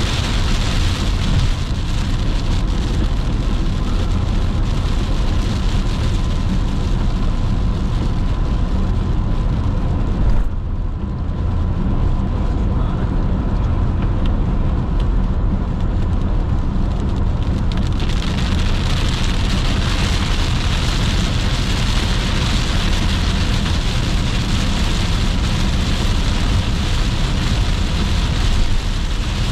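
Car driving on a highway in rain: a steady low rumble of road and tyre noise under a hiss of rain and wet-road spray. The hiss drops away for about seven seconds partway through, then comes back.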